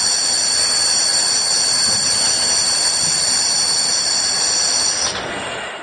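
E-bike hub motor driven by a square-wave controller with its Hall sensor wire disconnected, giving a loud steady high-pitched electromagnetic whine made of several tones over a hiss. This is the sound of a failed or badly connected Hall sensor. The whine stops about five seconds in.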